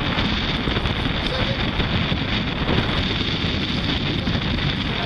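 Wind blowing across the microphone at sea: a steady, loud noise with no breaks.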